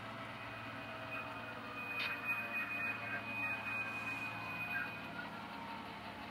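HO-scale model train backing slowly: a low steady hum with a thin, steady high-pitched whine that starts about half a second in and stops about five seconds in, and a sharp click about two seconds in.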